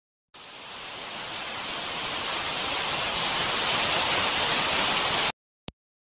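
Television static: an even hiss that grows louder for about five seconds, then cuts off suddenly, followed by a single short click.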